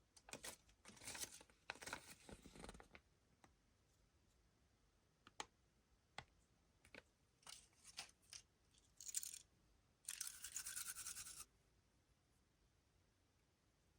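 Kinder Surprise egg being unwrapped and opened: foil wrapper crinkling and tearing in short bursts, then a series of sharp clicks, and a steady rasp lasting about a second and a half.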